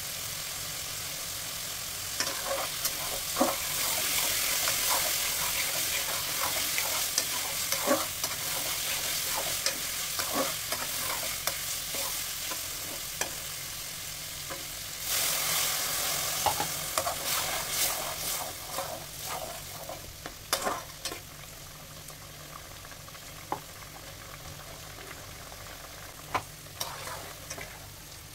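Vegetables sizzling in hot oil in a metal wok while a flat spatula stirs and scrapes them, with many short knocks of the spatula against the pan. The sizzling swells twice, loudest about halfway through, and is quieter near the end.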